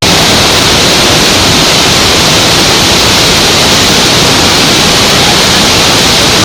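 Loud, steady rushing hiss with no change in level or pitch. It starts and cuts off abruptly.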